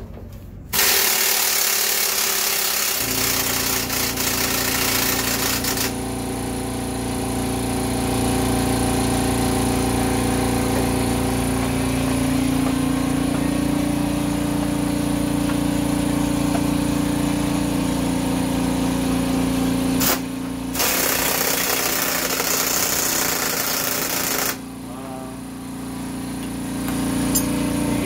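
Machinery running steadily: a motor's drone with a rough, rattling hiss over it. The hiss cuts in and out abruptly a few times.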